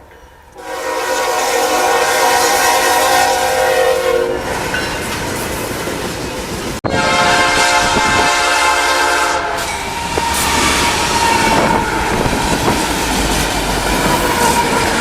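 Passenger train air horn sounding two long chord blasts, followed by a train running past with steady rushing wheel and rail noise and a faint held whine.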